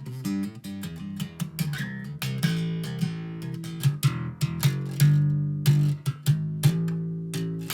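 Background music led by plucked and strummed guitar, with a steady rhythm of sharp note attacks.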